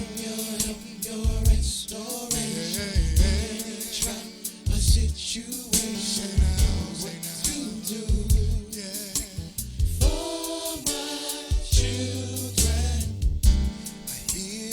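Gospel vocal group singing over a soul-style accompaniment with drums and bass.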